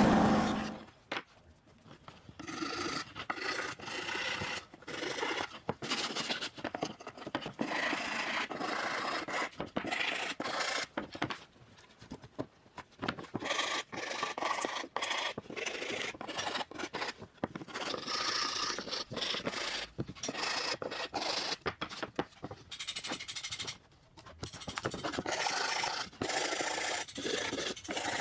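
Wood being smoothed by hand with quick, irregular back-and-forth scraping strokes, with a couple of short pauses. A motor hum cuts off right at the start.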